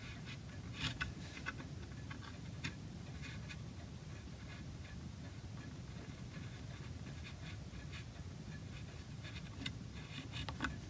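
A small hand carving tool paring walnut, making short scratchy cuts. A cluster of cuts comes about a second in and another near the end, with scattered single strokes between, over a low steady hum.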